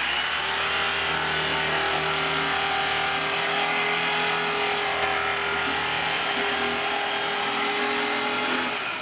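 Electric carving knife running steadily with a motor buzz as it slices through raw beef, then switched off near the end.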